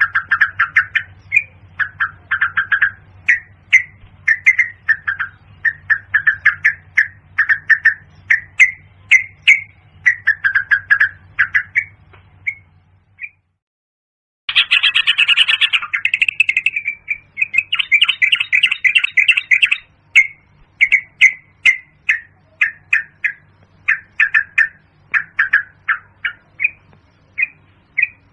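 Yellow-vented bulbul calling: a rapid string of short, bubbly chirping notes, several a second. The calls stop for about a second past the middle and then start again, over a faint low hum.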